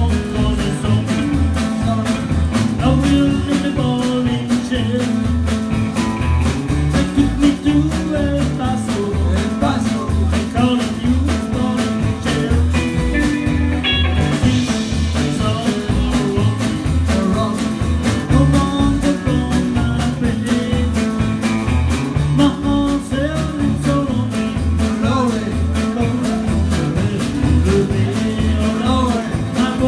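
Live rock 'n' roll band playing: upright double bass pulsing on the beat under two electric guitars and drums, with a man singing.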